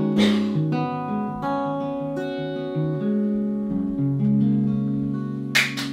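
Steel-string acoustic guitar closing a folk song: a strummed chord, a few picked notes, then a final chord left ringing. Hand-clapping starts just before the end.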